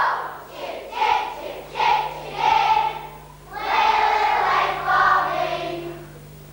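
A group of young children singing together, phrase by phrase, with held notes; the singing fades out near the end. A steady low hum runs underneath.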